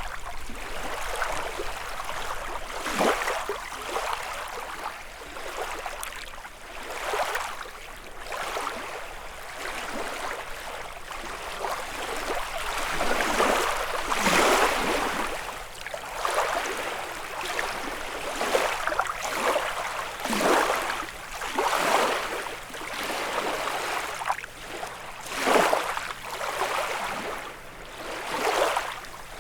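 Small lake waves lapping and washing onto the shore, in irregular surges every second or two, some louder than others.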